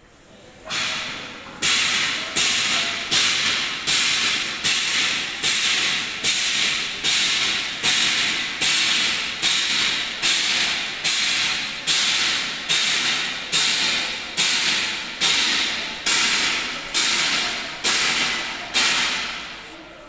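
A sharp hiss repeating a little more than once a second, each one starting suddenly and dying away before the next, from a machine in a tunnel-kiln works.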